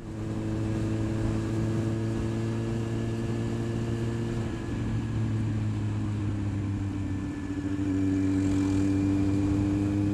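Kawasaki Z750R inline-four motorcycle engine running at a steady speed. About three-quarters of the way through, its note steps up slightly and gets a little louder.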